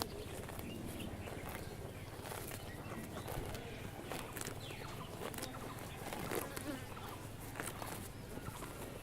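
Cows grazing: grass tearing and being chewed in short, irregular crunches over a steady low rumble.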